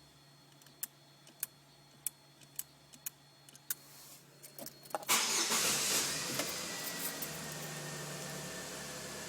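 Six or so sharp clicks of keypad buttons being pressed to enable the ignition. Just past halfway the car's engine cranks and starts, then settles into a steady idle under a constant hiss.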